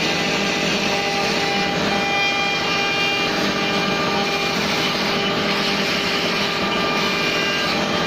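2.2 kW water-cooled CNC router spindle running steadily while its cutter carves a relief into wood: a continuous machine whine with several steady tones that change now and then as the cut moves.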